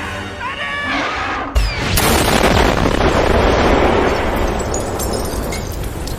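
An explosion sound effect: a sudden loud boom about a second and a half in, followed by a long noisy rumble that slowly fades.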